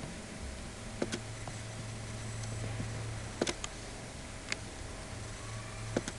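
Computer mouse button clicking, a handful of sharp clicks, some in quick pairs, over a steady low hum.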